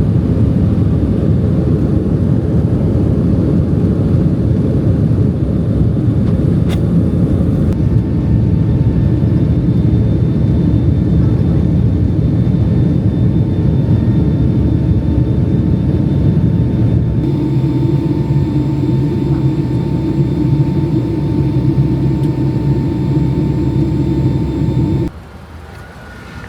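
Loud, steady rumble of a moving vehicle, heard in several cut segments. A faint steady whine sits above it in the later parts. The level drops sharply near the end.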